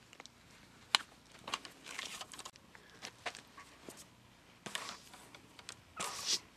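Ramrod pushing a patched round ball down a muzzleloader barrel. It makes scattered light clicks and a few short rasping strokes, the two loudest near the end.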